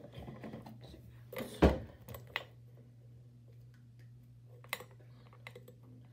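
Things being handled and set down on a desk: one louder thump about a second and a half in, then a few scattered light clicks and taps, over a steady low hum.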